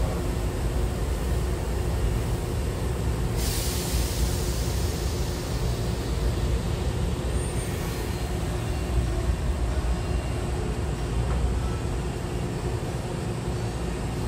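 Hankyu electric train standing at the platform with its doors open: a steady low rumble from the stopped train. About three seconds in comes a sudden hiss of compressed air from the train's air system, fading away over about four seconds.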